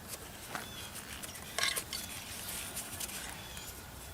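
Light clicks and scrapes of hand tools and metal engine parts being handled, with one louder short clack about a second and a half in.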